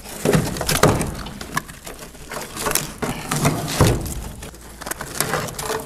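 Irregular knocks, scraping and crackling as gloved hands pry and pull burnt battery remains and debris out of a fire-damaged car engine bay, with a few sharper clunks among them.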